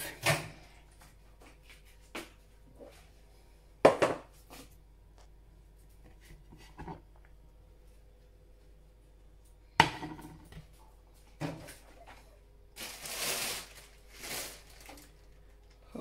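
A plate handled and set down inside a microwave oven: scattered knocks and clicks, sharpest about four seconds and ten seconds in, with a stretch of rustling a few seconds before the end.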